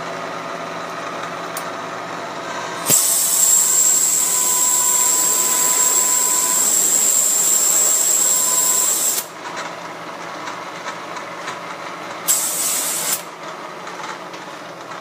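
Compressed-air hose blowing aluminium chips out of a freshly milled hole in a cylinder head: a long hiss with a high whistle lasting about six seconds, then a short second blast about a second long. Underneath, the Bridgeport milling machine's spindle runs with a steady hum.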